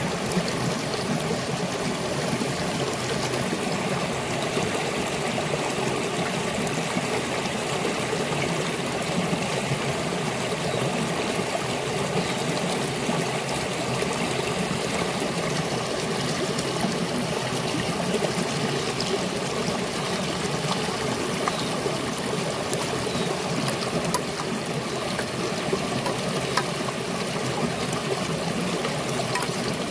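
Shallow river flowing over rocks and stones, a steady trickling and splashing of water.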